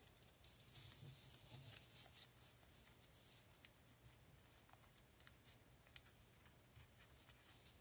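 Faint rustling and crinkling of a 10-euro banknote being folded and creased by hand, with a few small ticks of the paper later on, over a steady low hum.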